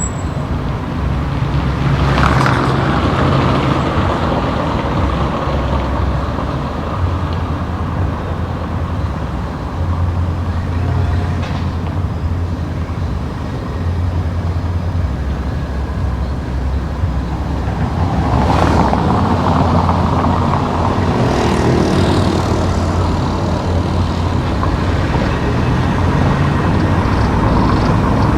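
Car driving along a road: a steady low engine and tyre drone with road noise. Other vehicles whoosh past, most plainly about two seconds in and again about two-thirds of the way through.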